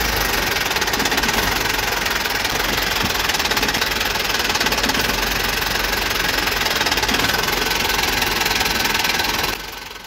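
A toy truck's small motor and gears running steadily with a fast rattling whirr, fading out near the end.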